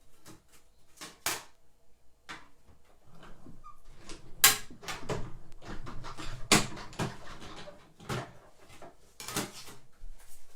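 Irregular knocks, clicks and clatter of handling at a Big Shot manual die-cutting machine while a small paper piece is die-cut.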